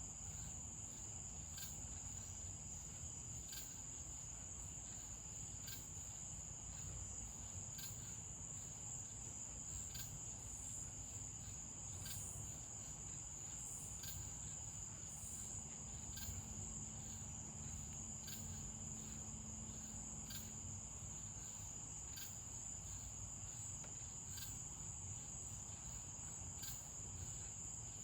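Night crickets trilling in one continuous high-pitched trill, with a short tick about every two seconds.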